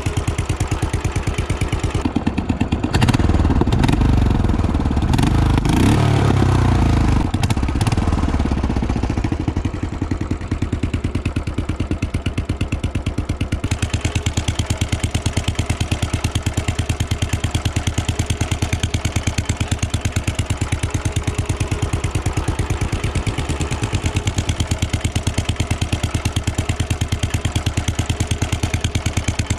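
Royal Enfield Bullet 500's single-cylinder engine beating through its exhaust. It gets louder for several seconds from about two seconds in, then falls back to a steady, even beat.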